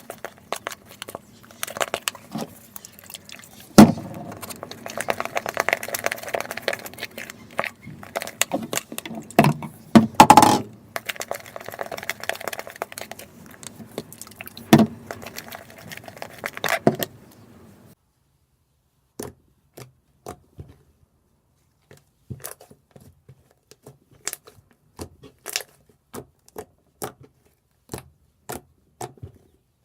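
Slime being mixed and worked, making many small sticky clicks and crackles with a few louder knocks; about 18 seconds in the steady background drops away and only sparse single clicks remain.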